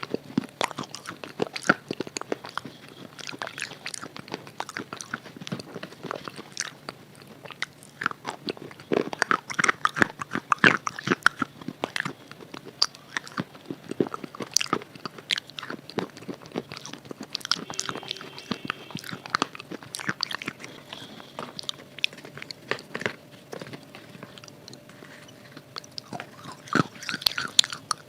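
Biting and chewing a hard, brittle red bar coated in red khadi paste: a dense run of sharp crunches that is busiest about ten seconds in and again near the end.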